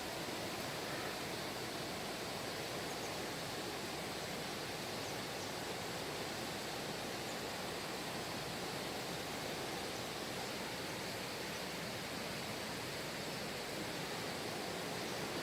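Steady rushing of a mountain valley stream, unchanging throughout.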